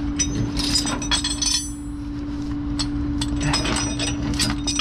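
Metal tow chains and hooks clinking and rattling in two clusters as they are unhooked from a vehicle on a flatbed tow truck, over the steady hum of the truck's engine running.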